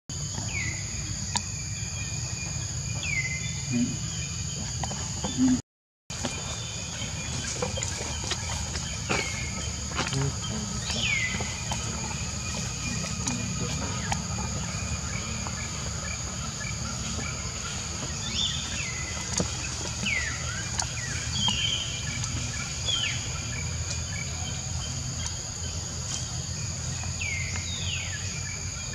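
Steady insect chorus with a low rumble underneath, and short falling chirps every few seconds. The sound cuts out briefly about six seconds in.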